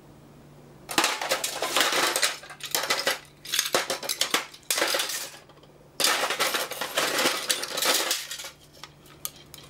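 Plastic pump stages (acetal impellers and housings) and washers clattering and clinking against one another and a metal tray as they are rummaged through by hand, in several bursts of rattling starting about a second in, tailing off to a few small clicks near the end.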